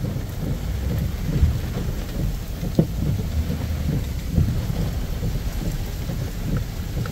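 Severe storm heard from inside a pickup truck's cab: heavy rain and gusting wind beating on the truck in a dense, uneven low rumble, with a few louder thumps. The men take the storm for a tornado.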